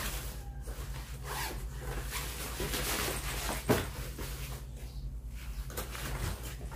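Zipper being drawn along the removable fabric divider panel inside a suitcase, with fabric rustling and one sharp click about three and a half seconds in. A steady low hum runs underneath.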